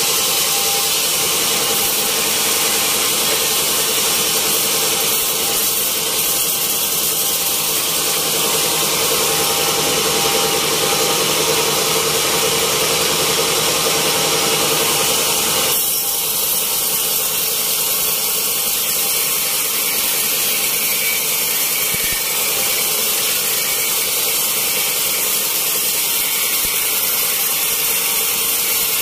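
Band sawmill running steadily as its blade cuts lengthwise through a wet teak log. The sound changes abruptly about halfway through.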